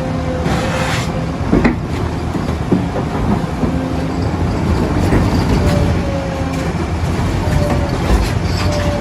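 JCB 3DX backhoe loader's diesel engine running under load, with a hydraulic whine that rises and falls and a few knocks from the working machine.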